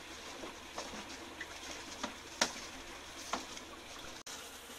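Steady bubbling and trickling of water in fish holding tubs, with a few short sharp knocks and splashes from the fish being handled.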